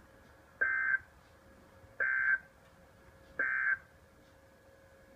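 NOAA Weather Radio Emergency Alert System end-of-message tones: three short, identical bursts of SAME digital data about 1.4 seconds apart. They mark the end of the warning broadcast.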